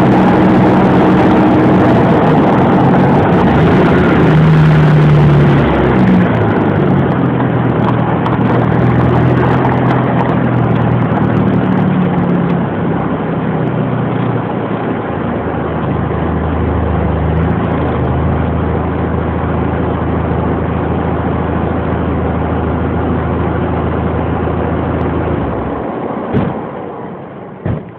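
Audi A4 driving, with engine and road noise and wind rushing over the microphone; the engine note shifts in pitch several times. About 26 seconds in the noise falls away as the car stops, followed by a few sharp clicks.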